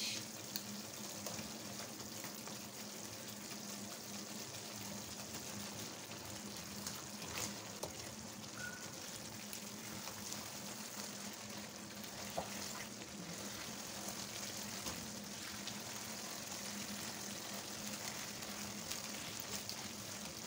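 Thick tomato sauce simmering and sizzling steadily in a frying pan, with a few light knocks of a wooden spatula against the pan as fried tilapia are turned in the sauce.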